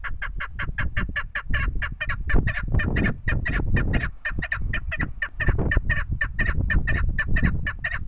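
Female chukar partridge calling in a long, rapid, even series of short notes, about five a second.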